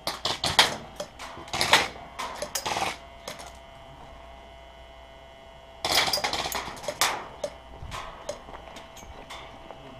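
Rustling and scuffing as a player pushes through camouflage netting, in two irregular bursts: one over the first three seconds, another about six seconds in.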